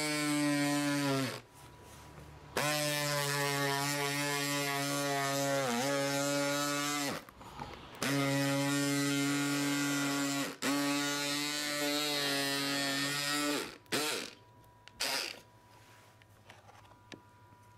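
Cordless electric scissors' small motor buzzing as the blade cuts through corrugated plastic sheet, running in four stretches with short stops between, its pitch dipping briefly under load in the second stretch. It stops for good about three-quarters of the way through, after two short blips.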